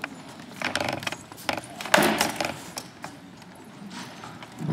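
Rattan swords striking shields and armour in SCA armoured combat: a quick run of knocks and clattering blows, the loudest about two seconds in, with another knock at the end.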